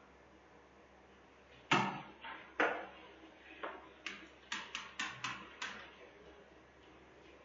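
Two loud knocks about two seconds in, then a quick run of about seven sharp taps, roughly four a second, from a stylus or pen striking a pen tablet while handwriting.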